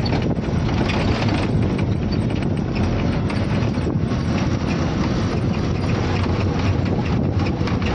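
A heavy goods lorry's diesel engine running while it drives, heard from inside the cab, with a steady rattle of the cab throughout.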